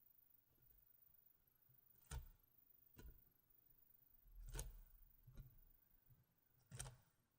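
Faint, sharp taps and clicks from handling the packaging of a GoPro Hero 4 Silver, about five of them spaced unevenly a second or so apart.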